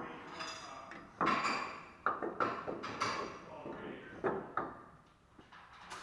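Metal clunks and scrapes as a rear disc brake caliper is pried and pulled off its bracket and rotor, with a series of sharp knocks that ring briefly, mostly in the first few seconds.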